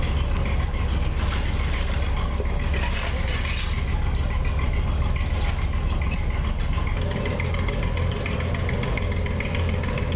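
A boat's engine running steadily with a deep, low hum, heard from on board as the boat moves along a canal.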